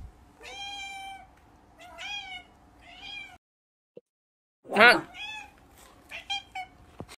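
A domestic cat meowing again and again: three drawn-out meows, a short pause, then a loud cry and a run of short meows.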